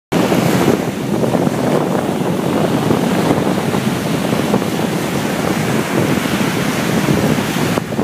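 Small surf breaking and washing up a sandy beach, with steady wind buffeting the microphone.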